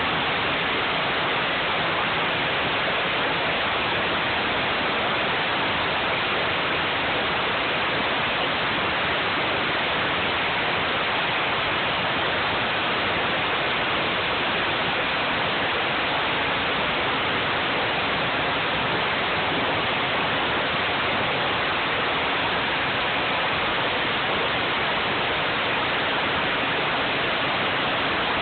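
Pressure washer wand spraying a high-pressure fan of water onto concrete: a steady, unbroken hiss of the jet hitting the surface.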